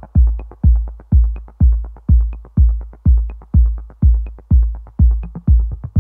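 Electronic background music: a steady deep kick-drum beat about twice a second, with lighter hi-hat ticks between the beats.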